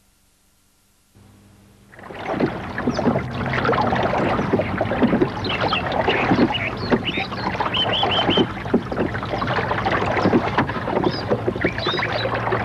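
River water splashing and babbling, with birds calling over it. It comes in faintly about a second in and is full from about two seconds.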